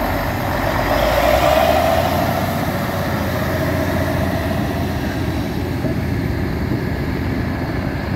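A heavy vehicle's engine running steadily as it goes by, loudest about a second in.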